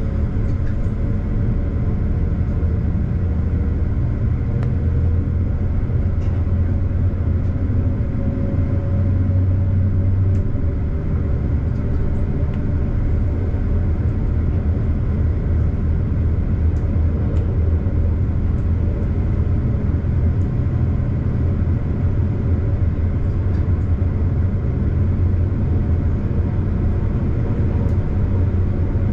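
Diesel regional train running steadily at about 100 km/h: a steady low engine drone over the rumble of wheels on the track.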